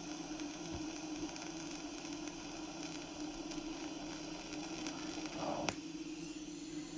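Argon arc (TIG) welding arc running with a steady hiss over a low hum, with one sharp click near the end.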